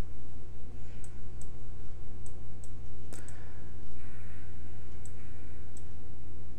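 Computer mouse clicking: about eight short, sharp clicks spread irregularly, the loudest just after three seconds in. A steady low hum runs underneath.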